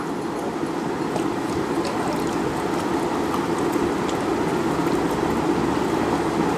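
Fingers mixing rice on a plate, with faint scattered soft clicks, over a steady rushing background noise.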